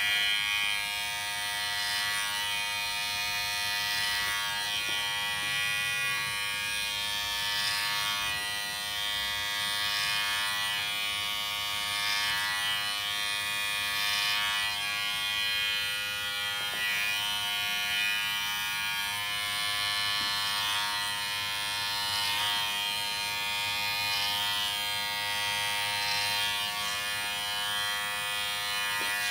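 Electric hair clippers switched on and running with a steady buzz, their sound swelling and easing every second or two as they are worked through the hair.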